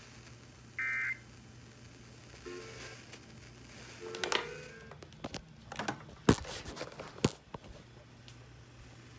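The last of three short, warbling two-tone EAS (SAME) digital data bursts, the end-of-message code that closes the severe thunderstorm warning, heard about a second in over radio reception. Then a low hum with scattered clicks and crackles, the loudest about six seconds in.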